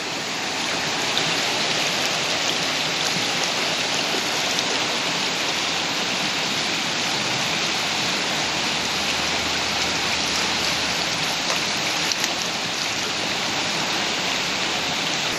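Steady rush of a river flowing over rocks, an even hiss with no break.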